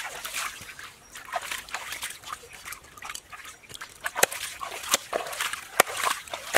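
Knife chopping through a large fish's body on a wooden chopping board: sharp knocks about four seconds in, again near six seconds and at the end. Shallow stream water trickling and splashing around the hands in between.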